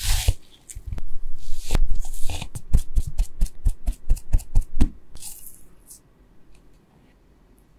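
Wire potato masher pressing boiled potatoes in a wooden bowl: a run of soft squashing knocks, about three a second, as the masher hits the potatoes and the bowl's bottom. The strokes stop about five seconds in.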